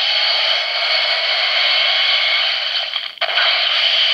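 Electronic sound effect from the DX Hee-Hack Gun toy's small built-in speaker: a loud, steady hissing rush with a brief break about three seconds in. It is the gun's limit-break finisher effect, triggered by its button.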